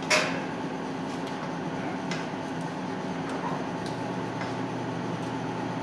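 A steady low hum of commercial kitchen equipment, with a few faint taps and scrapes of a spatula stirring a salad in a stainless steel mixing bowl.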